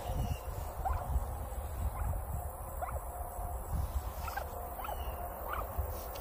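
Turkey hen giving short, soft rising chirps, about five of them roughly a second apart, as she forages in a pile of raked grass.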